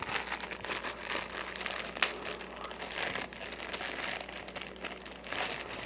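A mystery-minis blind box being opened by hand: packaging crinkling and crackling in short irregular bursts, with a sharp click about two seconds in.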